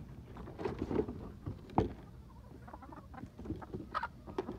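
A flock of hens crowding and scuffling against a chicken-wire fence: irregular taps and scratches, with one sharper knock a little under two seconds in.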